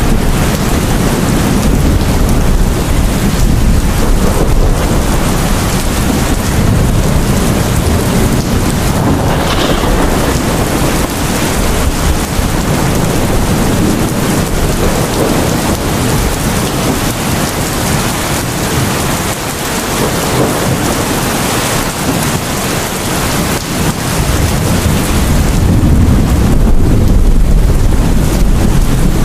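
Heavy rain pouring down steadily, with a deep rolling rumble of thunder underneath that eases off around the middle and swells up again near the end.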